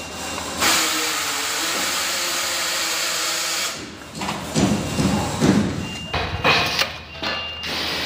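A steady mechanical whir that starts about half a second in and cuts off abruptly after about three seconds, followed by irregular knocks and rattles of metal parts being handled at an electric scooter's front disc brake.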